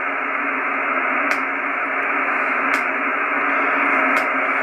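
Hiss from a homebrew HF transceiver's receiver, cut off above about 3 kHz, with a sharp click about every 1.4 seconds. The clicks are electric fence controller pulses picked up by the receiver, with the noise blanker switched off.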